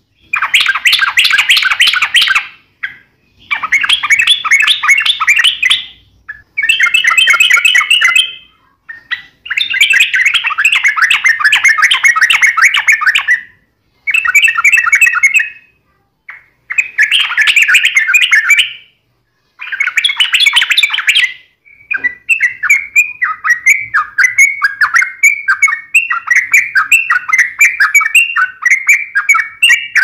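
Yellow-vented bulbul (trucukan) singing fast, dense chattering phrases of about two seconds each with short gaps between them, turning about two-thirds of the way in to an unbroken run of quick repeated chirps. This is the rapid 'ropel' fighting chatter.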